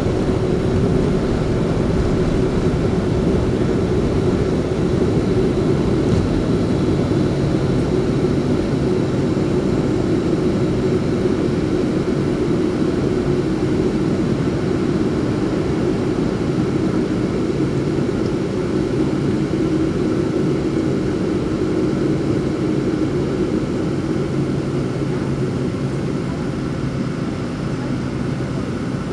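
Boeing 737 airliner's jet engines and airflow during takeoff: a steady roar with a steady droning hum over it, easing slightly near the end.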